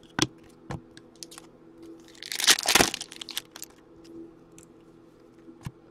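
Hockey trading cards being handled and slid against one another in the hand: scattered light clicks, with a louder rustle lasting most of a second about two and a half seconds in.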